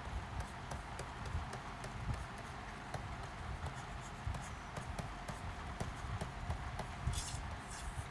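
Stylus writing on a tablet screen: a run of light, irregular taps and scratches as letters are handwritten, over a steady background hiss.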